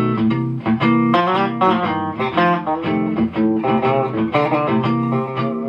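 Clean-ish electric guitar playing a single-note melody over a looped guitar backing part, heard through a Mesa Boogie amp's stock 15-inch speaker, with quick note changes and several notes sounding at once.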